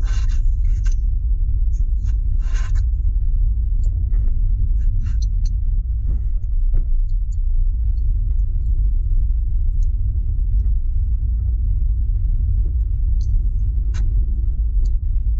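Steady low rumble of a car driving, heard from inside the cabin: engine and tyre noise on the road, with scattered light clicks and short rattles, a few of them near the start.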